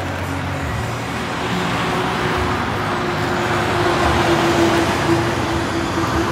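Steady motor-vehicle noise: an engine running with road traffic.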